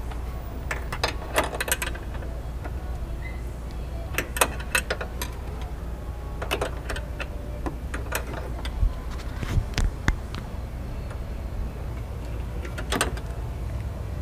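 Scattered clicks and light knocks, some in quick clusters, of hands working plastic clips, wire connectors and metal fittings behind a car's front grille while a horn is being fitted, over a steady low hum. The horn itself does not sound.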